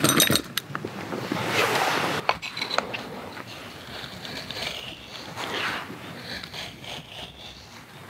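A knife drawn from its leather sheath with a sharp clink, then the blade shaving curls off a wooden stick in a series of short scraping strokes, carving a feather stick.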